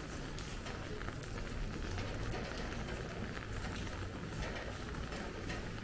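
Steady rain falling, with many small drops pattering on hard surfaces, over a low steady rumble.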